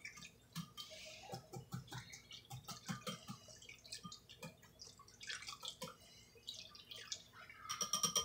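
Wire whisk stirring milk and butter in a small bowl: irregular wet splashing and clicking strokes. Near the end the strokes turn faster and louder, with a ringing tone.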